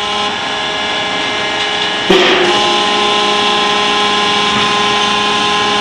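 Electric hydraulic power unit driving a belt casing tong, running with a steady machine hum. About two seconds in there is a sudden sharp crack, and after it the hum is louder and its tones shift as the tong works the tight casing connection.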